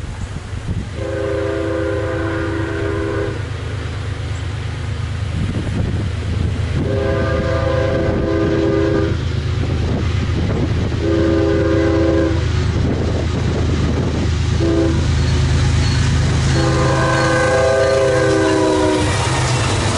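Norfolk Southern diesel freight locomotives approach and pass with the air horn sounding the grade-crossing signal: long, long, short, long, with a brief extra toot before the last long blast. A deep engine rumble grows louder as the locomotives close in.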